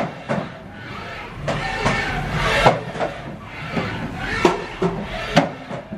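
Haas VF-2SS vertical machining center moving its X, Y and Z axes at 100% rapid traverse (1,400 inches per minute): the axis drives whir in short runs, with sharp knocks as the axes start and stop.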